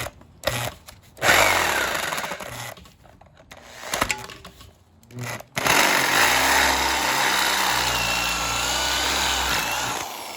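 Hand-held electric drill boring into the head of a steel engine bolt to drill it off. There is a short run about a second in, then a longer steady run from about halfway with a wavering whine from the bit cutting, stopping near the end.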